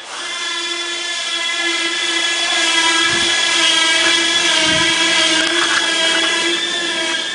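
A motor running with a steady, high whine and a hiss, typical of shop machinery.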